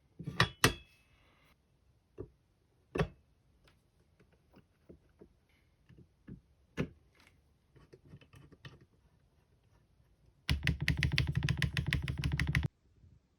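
Qwertykeys QK75 mechanical keyboard with HMX Macchiato switches on a polycarbonate plate and Osume Dalgona keycaps: a few scattered single clacks and taps, then near the end a fast burst of typing lasting about two seconds that stops abruptly.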